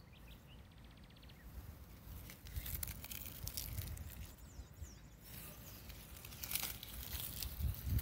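Wind gusting through trees, rustling the leaves in waves that grow stronger after the first couple of seconds, over a low rumble of wind on the microphone. A bird gives a short rapid trill near the start and a few faint chirps midway.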